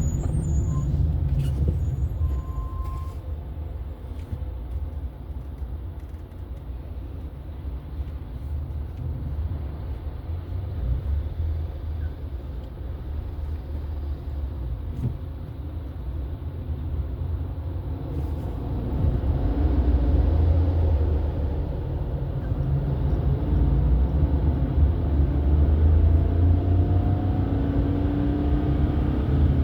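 Car on the move: steady low engine and road noise, getting louder about two-thirds of the way in, with the engine note rising near the end.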